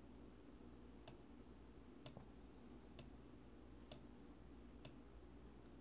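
Near silence: faint sharp clicks about once a second over a low steady room hum.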